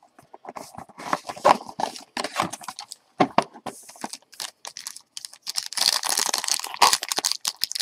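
Hands handling a trading-card box, with many light clicks and knocks of the cardboard, then from about six seconds in the denser crinkling and tearing of the pack's shiny wrapper being opened.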